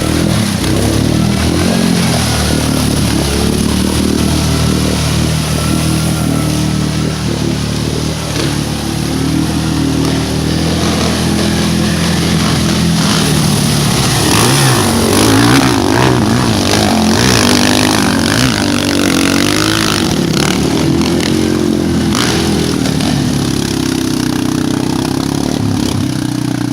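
Yamaha Grizzly 550 ATV's single-cylinder four-stroke engine running under load off-road, revving up and down again and again.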